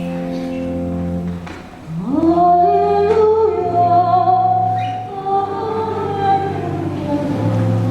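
Church organ holding chords that fade out about a second and a half in, then voices singing a hymn over sustained organ accompaniment.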